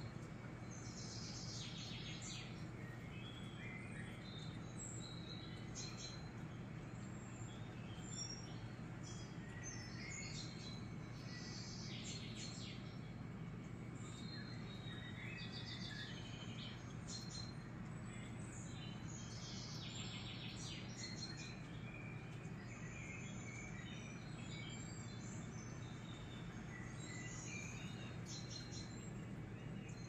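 Faint, scattered bird chirps over a steady low hum.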